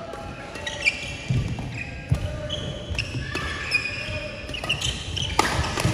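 Badminton doubles rally: rackets strike the shuttlecock with several sharp hits, and sneakers squeak and thud on the court mat between them.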